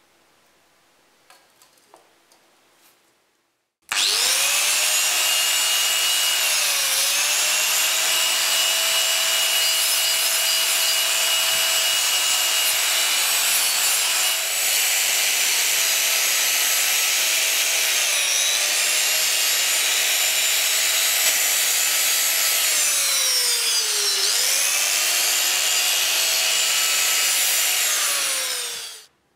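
Small handheld electric polisher running a buffing disc against a steel knife blade clamped in a vise: a high motor whine over the hiss of the disc on metal. It starts about four seconds in, its pitch sags and recovers four times as the disc is pressed onto the blade, and it stops just before the end.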